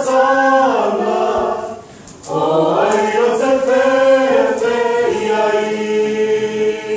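Church youth choir of men, women and children singing unaccompanied: one phrase breaks off about two seconds in, then a new phrase builds and ends on a long held chord.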